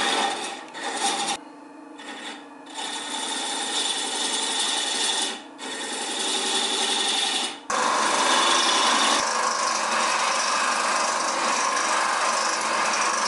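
Wood lathe spinning a wooden tobacco pipe while a hand scraper cuts its shank, a rasping scrape that drops away briefly a few times as the tool eases off. About eight seconds in it cuts to a small sanding machine running steadily as the black pipe mouthpiece is ground against it.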